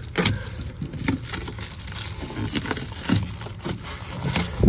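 Irregular knocks, clicks and rustling from things being handled and shifted in a small space, over a low rumble.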